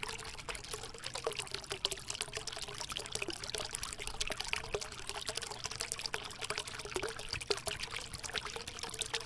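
Water pouring and trickling steadily, a dense patter of small splashes.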